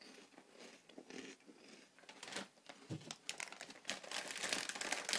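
Plastic crisp packet of onion ring snacks crinkling and crackling as it is squeezed and handled, getting denser and louder near the end.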